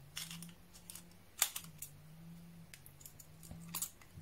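Small screwdriver turning the tiny screw in the end of a machined aluminium SSD enclosure: light scraping and ticking of the bit in the screw head and metal, with a sharp click about a second and a half in and a few more near the end.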